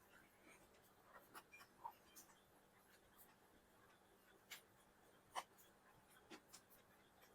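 Faint eating sounds: a handful of soft, scattered clicks and smacks of chewing and mouth noises over quiet room tone.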